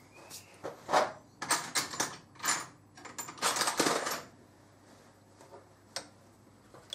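Small metal objects clinking and clattering as they are handled, a quick run of sharp knocks with a slight metallic ring over about four seconds, then one more tick near the end.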